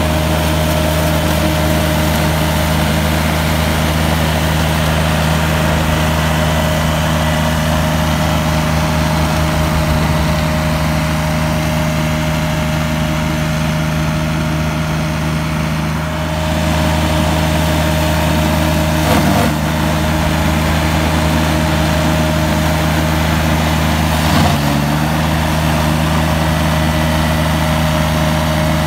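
McConnel Robocut tracked flail mower working under load, its engine and spinning flail head making a steady drone with a constant whine as it cuts rough grass. Two brief knocks come in the second half.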